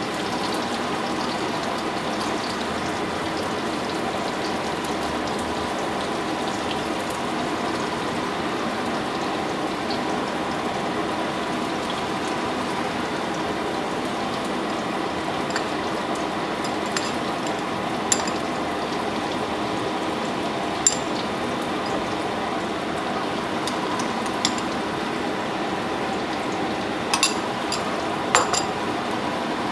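Steady hiss and hum throughout. In the second half a few light, sharp clicks and taps come as toppings are set on a burger.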